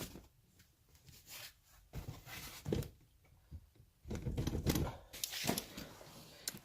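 Irregular rustling, scraping and a few knocks and clicks of hands working a car's rear seat loose, with a denser stretch of rubbing and shuffling about two-thirds of the way in.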